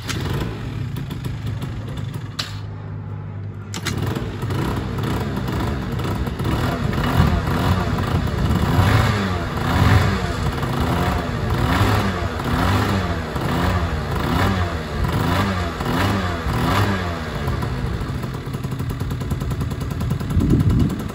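A cold Minarelli horizontal two-stroke scooter engine, bored out to 70cc and running a larger 88 main jet, running just after being started. Its revs are blipped up and down about once a second in a long series, then it settles back to a steady idle near the end.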